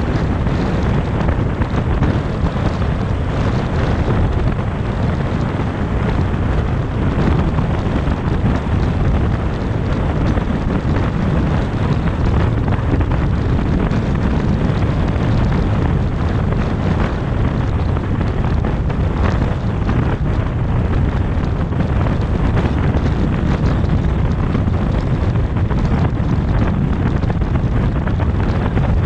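Steady rumble of wind and tyre noise from a car driving at highway speed, with wind buffeting the microphone.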